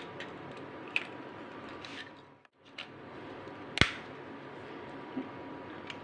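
Small plastic clicks from handling a battery-powered handheld coffee beater as its battery cap is closed, with one sharp snap about four seconds in.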